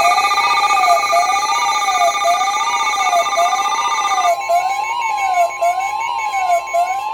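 Emergency alert tones: a steady tone just above 1 kHz, the NOAA Weather Radio warning alarm tone, under a siren-like tone that sweeps up and down about once a second. About four seconds in, the upper steady tones drop away.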